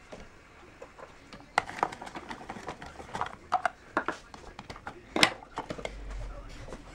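Plastic and metal parts of a hand-cranked rotary drum slicer clicking and clattering as it is handled and its steel slicing drum is pulled out. The clicks come in a loose string, the sharpest about five seconds in.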